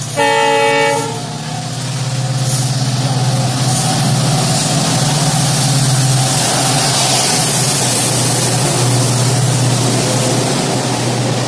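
Diesel locomotive horn sounding one blast of about a second as the train approaches. Then the locomotive's engine and the LHB coaches run through at high speed, a loud, steady rumble and rush of wheels on rail.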